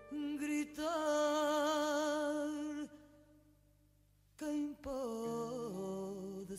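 Background song in Portuguese: a solo voice holds a long note with vibrato, falls silent for about a second and a half, then comes back in with accompaniment.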